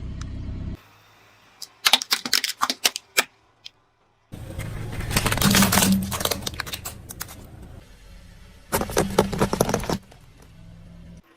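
Car tyre crushing brittle objects: rapid cracking and crunching in several separate bursts that start and stop abruptly, with a low steady hum under the longer ones.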